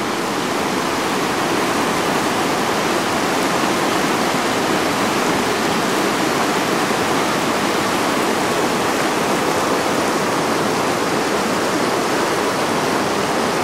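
A river in flood: fast floodwater rushing past, a steady, loud, unbroken rush of water.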